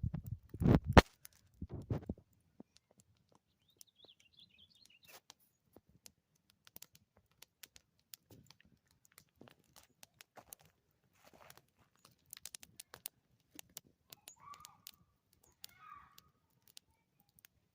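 Campfire coals crackling in scattered sharp clicks and pops, after a few heavy knocks in the first couple of seconds. A bird chirps faintly now and then.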